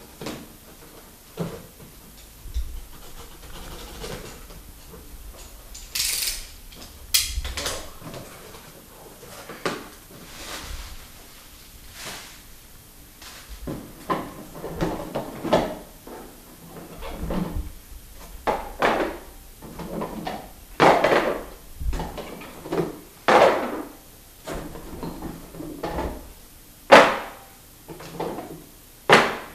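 Unboxing sounds: packing tape being pulled off a cardboard box, with a sharp ripping sound around six to seven seconds in, and cardboard flaps and packing rustling. From about halfway, a series of knocks and rustles as rubber diabolo cups are lifted out and set down one by one on the tabletop.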